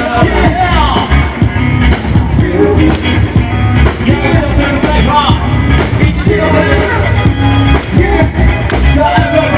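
Loud music with a steady beat, heavy bass and a singing voice.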